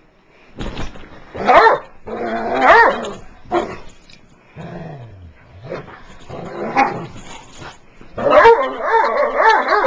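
Dogs play-fighting, growling and barking in short bursts about a second apart, then a longer unbroken run of growling and yelping in the last two seconds.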